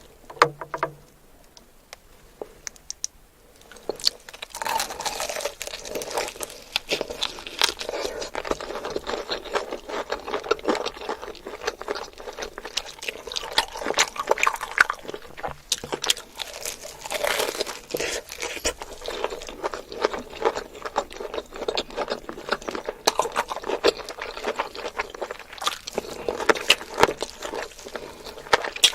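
Close-up eating sounds: food being chewed and crunched, with dense wet crackling and clicking, starting about four seconds in after a quieter opening.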